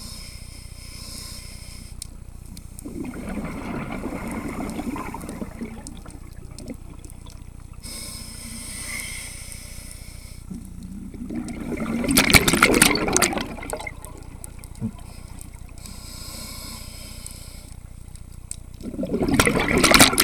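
Scuba diver breathing through a regulator underwater: three breaths, each a quieter hiss of inhaling followed by a louder gurgling rush of exhaled bubbles, the bubble bursts about eight seconds apart.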